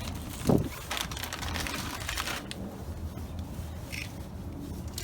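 Plastic zip-tie snow-chain straps being handled and pulled through their locking heads, a rapid run of ratcheting clicks, with a short thump against the wheel about half a second in.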